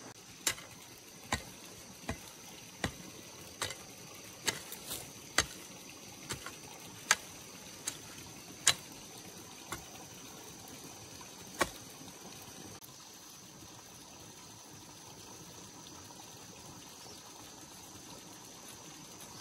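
A series of sharp knocks, about one every second, that stop about twelve seconds in, over a steady hiss.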